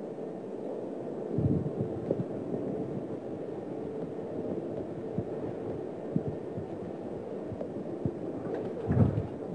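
Steady low hum of room noise with a few dull low thumps, the loudest about a second and a half in and again near the end.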